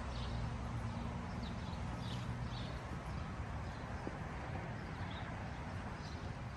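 Outdoor background ambience: a steady low hum with faint, short high chirps now and then.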